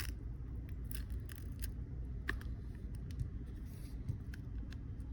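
An opening pick sliding along the edge of an iPhone 11 Pro Max between the display and the frame, cutting the screen adhesive: light scraping with scattered small clicks and ticks, over a steady low hum.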